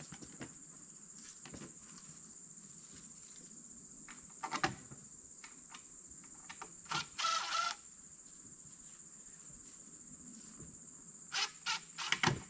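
Insects droning steadily with a high, even whine. Over it, knocks and a short scrape from a coil of black plastic water pipe being handled on a wooden reel stand: one knock a little before midway, a scrape just past midway, and a quick cluster of knocks near the end.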